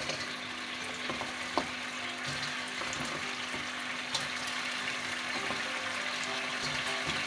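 Sweet-chili sauce sizzling in a non-stick wok as chicken wings are added and stirred in with a plastic spatula, a steady frying hiss with a couple of light clicks.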